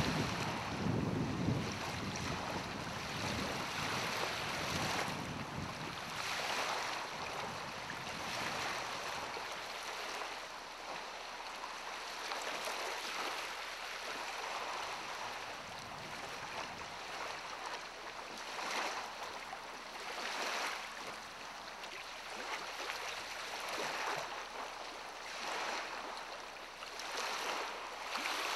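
Wind gusting on the microphone over small lake waves lapping, with a low rumble of wind in the first few seconds, then repeated washes of water.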